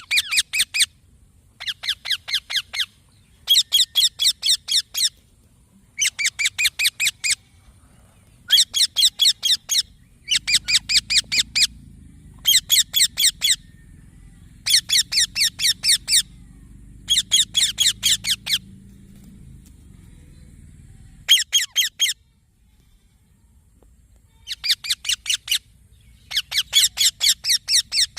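A young Indian ringneck parakeet calling in bursts of quick, shrill chattering notes, about six to ten notes per burst, repeated every couple of seconds with a longer pause near the end.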